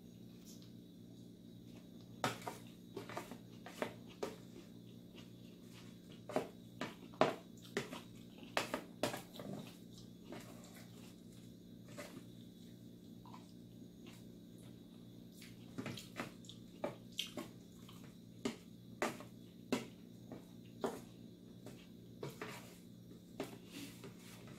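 Close-up eating sounds: wet clicks and smacks of chewing and lip-smacking, coming in clusters with short pauses, over a steady low hum.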